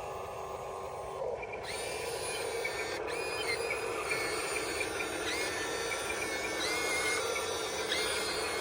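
Small electric motors and gearing of a radio-controlled construction model running, a steady grinding hum. From about two seconds in, a high motor whine joins it, its pitch stepping and gliding up and down again and again as the controls are moved.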